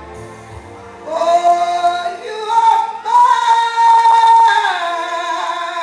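A woman singing long, loud held notes into a handheld microphone, amplified over a PA. Her voice comes in strongly about a second in and steps up to a higher sustained note.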